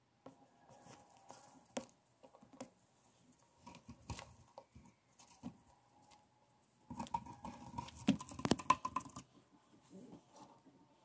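A hamster digging and scrabbling through shredded cardboard and paper bedding inside a cardboard tube: scattered scratches, rustles and clicks, with a stretch of dense, louder rustling about seven seconds in.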